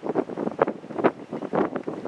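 Strong gusty wind buffeting the microphone in rapid, irregular bursts.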